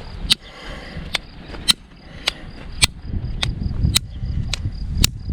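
Victorinox Hunter Pro folding knife being knocked repeatedly in a test of its lock: a sharp click or knock about every half second, nine or ten in all.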